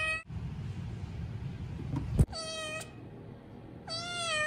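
Young kitten meowing: the end of one meow right at the start, then two more clear meows about a second and a half apart, the second longer and curving up and back down in pitch.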